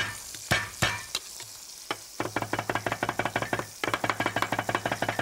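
Chef's knife on a wooden cutting board: a few sharp knocks as garlic cloves are crushed under the flat of the blade, then rapid, even chopping as the garlic is minced, with a short break near the end. A pork fillet sizzles steadily in a frying pan underneath.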